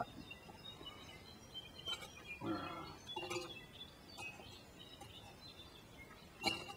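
Quiet outdoor ambience with faint, scattered high bird chirps and a few light clinks. A short low murmur comes about two and a half seconds in.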